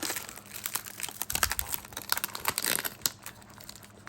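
A trading-card pack's wrapper crinkling in irregular crackles as it is torn open and handled by hand.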